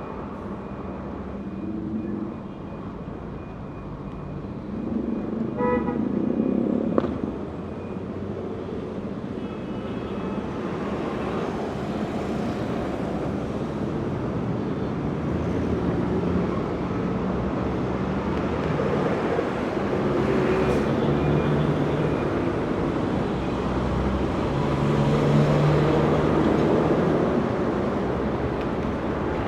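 Heavy street traffic: engines of passing trucks, buses and cars running and swelling past, with a short horn toot about six seconds in and a sharp knock just after it.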